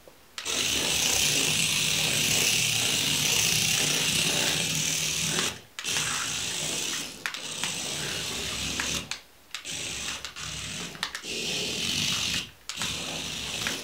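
Tiny electric drive motor of a 1:60 mini RC VAZ-2106 wagon running flat out with a high-pitched whine, cutting out briefly several times as the throttle is let off and pressed again.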